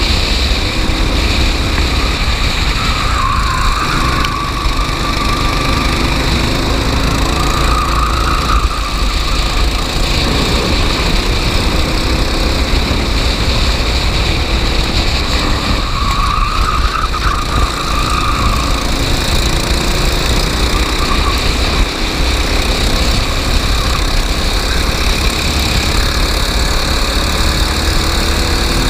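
Racing kart engine running hard on track, its pitch rising and falling as the kart speeds up and slows down, under a steady loud rumble. A short high squeal sounds three times.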